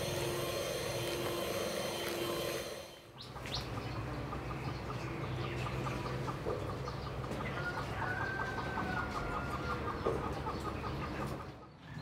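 Chickens clucking in rapid, evenly spaced notes, with a few bird chirps, after about three seconds of steady hum.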